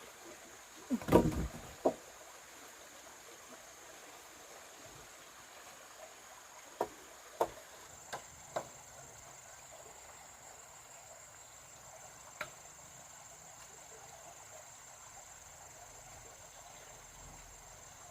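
Insects chirring steadily in a high thin tone, with a few sharp knocks: a loud cluster about a second in, then four lighter ones in quick succession about seven to nine seconds in, and one more a few seconds later.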